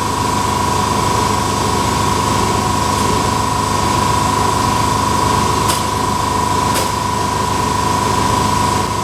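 Shop air compressor running steadily, a constant motor hum with a strong steady whine. Two faint clicks a little past the middle.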